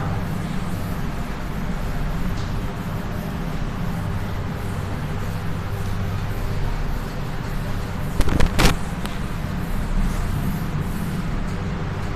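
A felt duster wiping chalk off a blackboard over a steady mechanical hum, with a short cluster of sharp knocks about eight seconds in.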